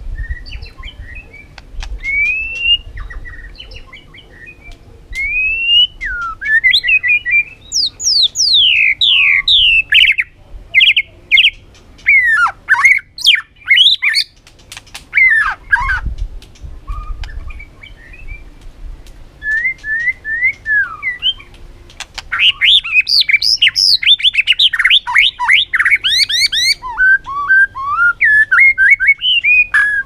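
White-rumped shama singing: a varied song of loud whistled phrases and fast runs of sweeping, down-slurred notes, broken by short pauses. A dense burst of quick notes comes about three-quarters of the way through.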